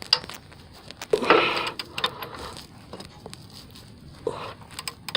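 Hand tools working the last starter mounting bolt on a Mazda B2500: scattered metallic clicks and scraping, with a louder rasp about a second in and another near the end.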